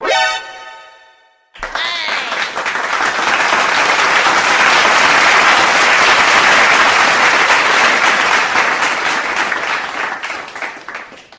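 A short pitched note rings out and dies away. About a second and a half in, sustained applause starts: many hands clapping, swelling in, holding steady, then fading out near the end.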